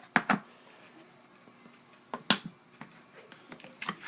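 Slime being squeezed and stretched by hand, giving sharp popping clicks as air pockets burst. There are two pops in the first half-second, the loudest a little after two seconds, and a few more near the end.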